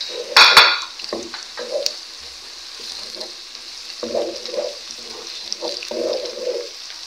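Sliced onions and whole spices frying in hot cooking oil, sizzling steadily while a wooden spoon stirs them round the pot. A brief, louder burst comes about half a second in, and the stirring is heard again about four and six seconds in.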